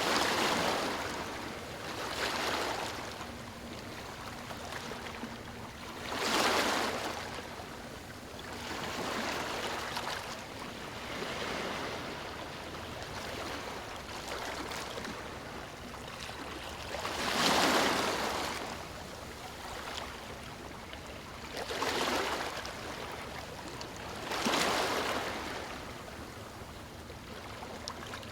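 Small waves breaking on a stony shore, each one rushing in and washing back over the stones in a surge that swells and fades every few seconds, some stronger than others.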